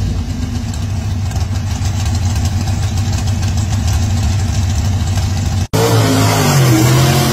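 Mud-bog pickup's engine running with a low, steady rumble. A sudden cut comes about six seconds in, then the engine is loud at high revs, its pitch sliding and then holding, as the truck charges through the mud pit.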